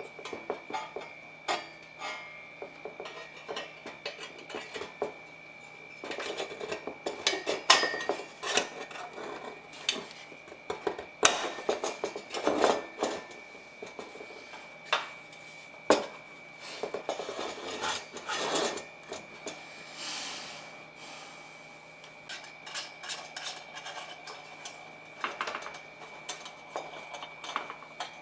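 Small metal parts clinking, knocking and scraping as they are handled and worked on by hand, in irregular bursts of light taps and rubbing.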